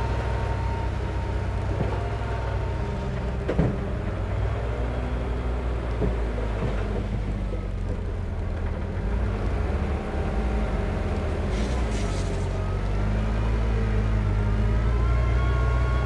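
Heavy-equipment diesel engine running steadily, its note drifting up and down, with a sharp knock about three and a half seconds in and a short hiss near twelve seconds.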